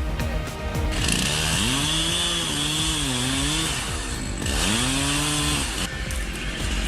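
Chainsaw revving up and cutting into wood twice: a long cut of about three seconds starting a second in, then a shorter one, with the engine pitch rising under load and falling back between them.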